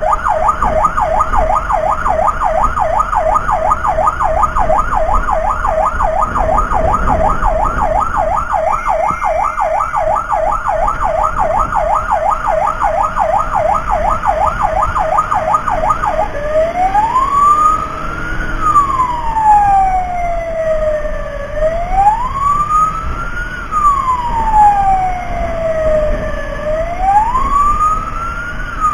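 Electronic emergency-vehicle siren on a fast yelp, about three sweeps a second, switching a little past halfway to a slow wail that rises and falls every five seconds or so, over a low vehicle rumble.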